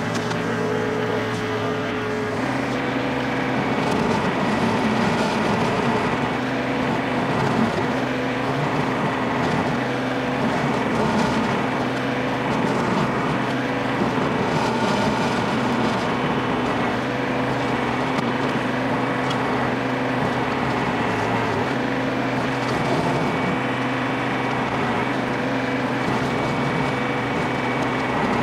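Compact tractor engine running steadily under load, driving a Baumalight 1P24 PTO stump grinder whose cutting wheel chews through mimosa stumps. The engine note steps to a different pitch about two seconds in.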